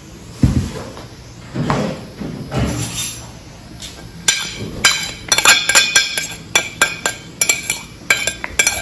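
A ceramic plate knocked and clinked against the rim of a mixing bowl as chopped vegetables are tipped and shaken off it: a few dull knocks at first, then from about halfway a quick run of sharp clinks, two or three a second.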